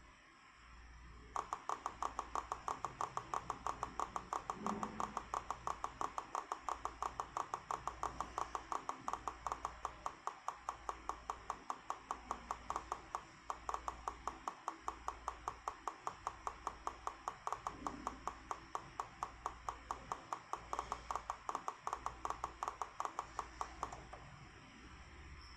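ASUS VC239H computer monitor giving off a rapid, regular ticking, several ticks a second, that starts about a second in and stops near the end: an abnormal noise from the monitor, the sign of a fault.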